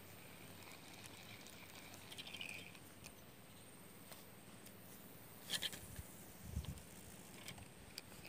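Quiet open-air background with a short run of rapid ticking about two seconds in, then a few sharp clicks and low knocks past the middle, as fishing rod and reel are handled close to the microphone.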